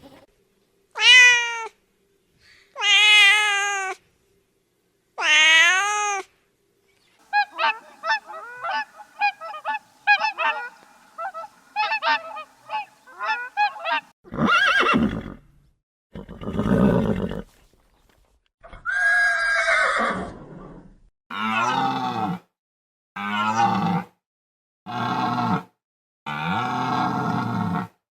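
A string of farm-animal calls, several different kinds in turn: a few separate rising-and-falling calls of about a second each, then a run of short, rapid calls, then a series of louder, lower calls.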